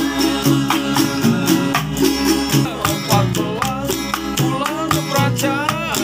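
Street busker band playing: acoustic guitar and ukulele-type string instruments strummed over a steady beat, which a homemade drum set of containers supplies by hand, with a man singing.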